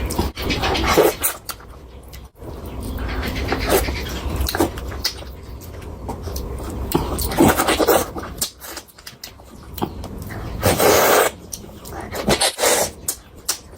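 Close-miked eating of fish curry and chicken curry: wet chewing and lip smacks in quick irregular clicks, with a louder burst of noise about eleven seconds in.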